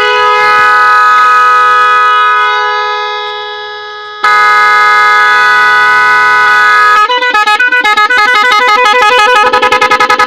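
Telolet multi-tone horn with snail-shell trumpets sounding a loud, steady chord that fades, then a new chord that cuts in suddenly about four seconds in. From about seven seconds the tones switch back and forth rapidly in a fast stuttering pattern.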